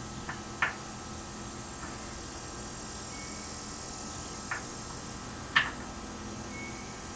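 A few small sharp clicks and taps of tools and parts being handled at a workbench during soldering, the loudest about half a second in and about five and a half seconds in, over a steady hiss.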